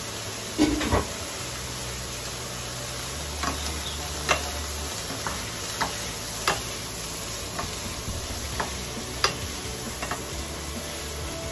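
Julienned carrots and bell peppers sizzling in a hot nonstick pan as they are stir-fried with a wooden spatula, which knocks against the pan in irregular taps over the steady hiss. The two loudest knocks come about half a second to a second in.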